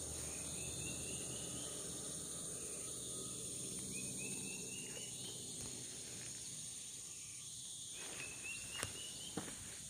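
Steady high-pitched insect chorus of tropical forest ambience, with a short rising trilled call repeating three times. A few sharp crunches of footsteps on leaf litter come near the end.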